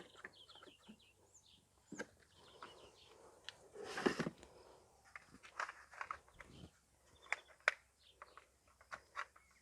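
Scattered clicks and knocks from plastic pressure-washer parts being handled and fitted together, with a louder scrape about four seconds in. Faint bird chirps near the start.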